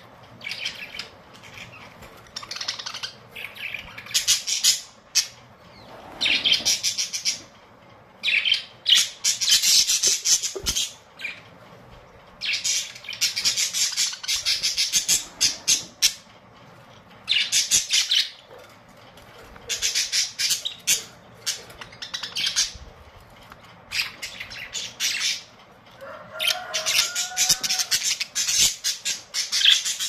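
A group of budgerigars chattering and chirping in repeated bursts of a second or two, with short pauses between them.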